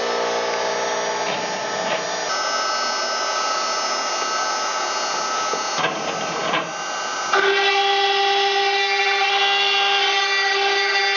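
ShopBot CNC router running, its spindle whining as the bit cuts a wooden board while motors drive the gantry. The pitch of the whine shifts about two seconds in, and again about seven seconds in, where the sound gets louder.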